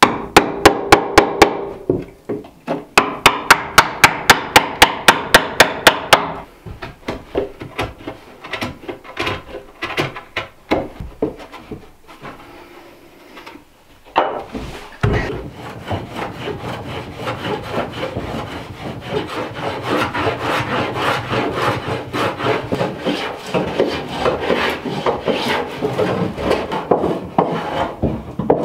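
Hand tools working pine boards: a quick, even run of sharp strokes, about four a second, in the first six seconds, then scattered knocks. From about halfway, a long stretch of steady rasping and scraping on the wood.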